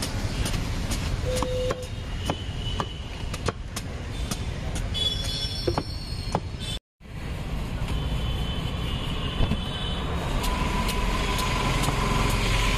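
Heavy knife chopping and shaving the rind of a raw jackfruit, a string of short sharp strokes, over a steady rumble of road traffic.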